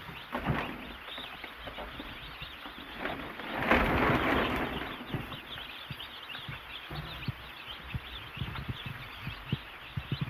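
A pen full of baby chicks peeping continuously, many small high cheeps overlapping. About four seconds in, a louder rustling noise rises for a second or so, and there are scattered low thumps.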